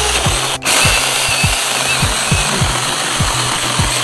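Battery-powered 6-inch mini chainsaw cutting through a small log: the chain running through the wood in a steady high buzz, briefly broken about half a second in.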